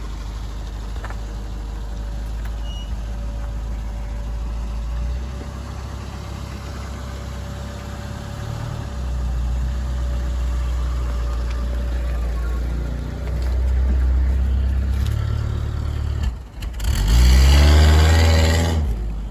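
Car engine running steadily, its level stepping up a few times, then revving up loudly for about two seconds near the end.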